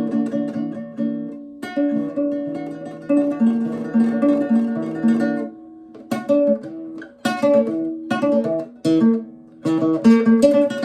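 Nylon-string guitar played fingerstyle: a short improvised passage of plucked chords and melody notes that ring on, with more frequent, sharper attacks in the second half.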